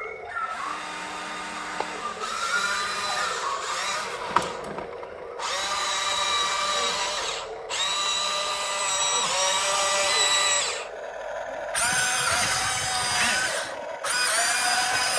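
RC model excavator's motor whining in spells of two to three seconds, starting and stopping as the machine moves, with a sharp click about four seconds in.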